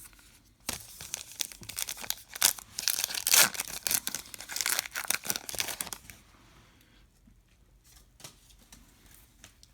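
Paper-foil wrapper of a trading-card pack being torn open and crinkled: several seconds of crackling, then a few light clicks and rustles as it settles.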